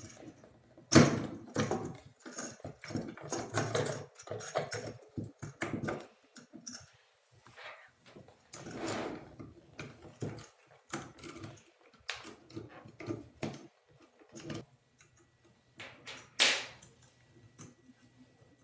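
Irregular clicks, knocks and rattles of metal and plastic parts being handled as a motorised gas valve shut-off unit is fitted onto the top of a gas pipe valve. A sharp knock about a second in and another near the end are the loudest.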